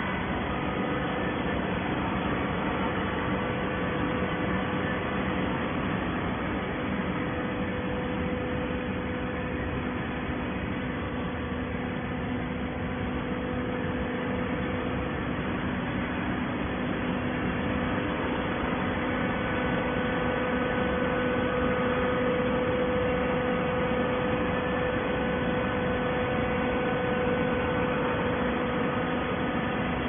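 Horizontal hydraulic baler running: a steady mechanical hum, with a constant mid-pitched tone over a dense rushing noise. It grows a little louder about two-thirds of the way through.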